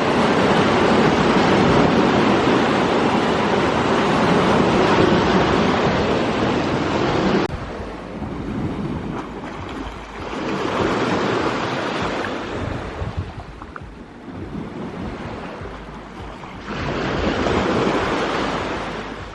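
Sea waves washing onto the shore. A continuous rush of surf cuts off abruptly about seven seconds in, and two further waves swell and fade after it.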